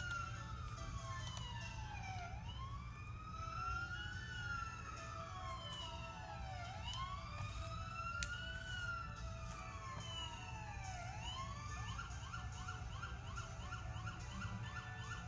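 Fire engine siren on a slow wail, rising and falling about every four seconds, then switching to a fast yelp about twelve seconds in, over a steady low rumble. It is played back through laptop speakers.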